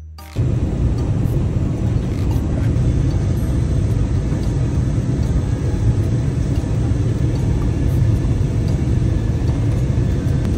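Airliner cabin noise on the approach to landing: a steady low rumble of engines and rushing air, cutting in sharply about half a second in.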